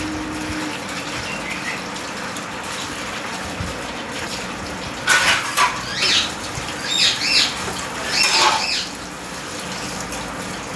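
Pet parrot giving a run of loud, high-pitched squawking calls about halfway through, over a steady rushing noise like running water.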